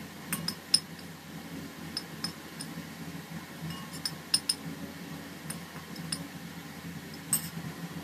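Kitchenware being handled: about a dozen light, sharp clinks and taps at irregular intervals, over a steady low hum.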